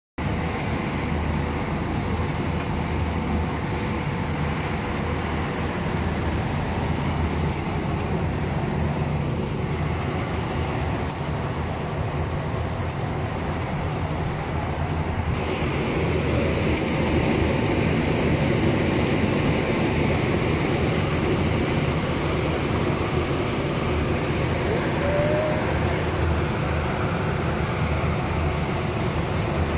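French fries production line running: a steady mechanical whir from the conveyor drives and large axial blower fans, over a low hum. The airy hiss grows louder about halfway through.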